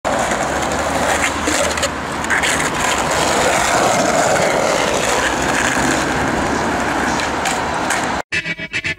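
Skateboard wheels rolling over paving stones, a steady rumble with street traffic behind it. A little past eight seconds the sound cuts out abruptly and breaks into a choppy stutter.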